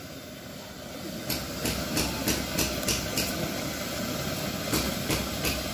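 Onion fritters (peyaju) deep-frying in a wide wok of oil, a steady sizzle, with a series of sharp clicks about a second in and a few more near the end.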